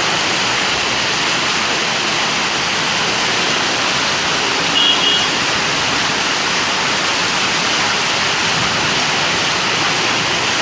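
Heavy rain pouring down in a steady, dense hiss. A short high tone rises above it for about half a second halfway through.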